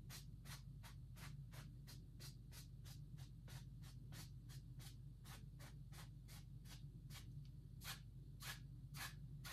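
Bristle paintbrush stroking back and forth across an oil-painted canvas: faint, scratchy swishes at an even pace of about three a second, over a low steady hum.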